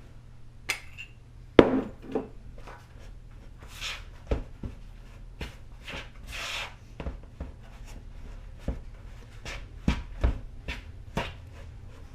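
A spoon stirring pie dough in a mixing bowl: irregular knocks and clicks of the spoon against the bowl, with a few short scrapes, the loudest knock about one and a half seconds in.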